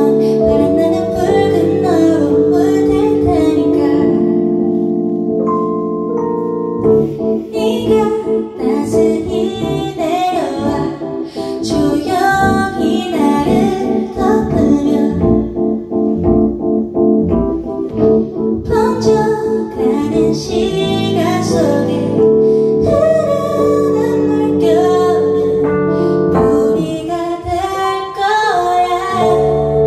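A woman singing live into a microphone over sustained chord accompaniment, with a run of quick repeated notes through the middle.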